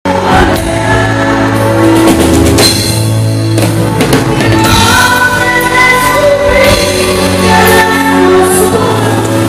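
A woman singing a ballad live into a microphone over a band with drum kit and keyboards, played loud through a concert sound system.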